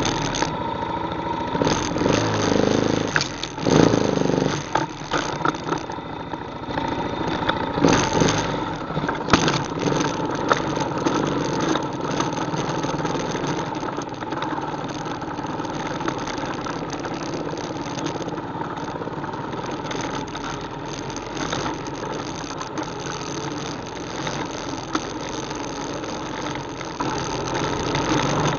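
ATV engine running steadily, louder for a few seconds around two to four seconds in and again near eight to ten seconds, with scattered clicks and rattles.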